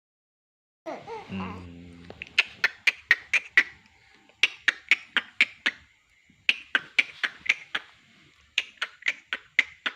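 A short vocal sound about a second in, then four quick runs of sharp, clipped laugh-like pulses, about five a second: a very fast, eerie giggle that seems to come from the baby.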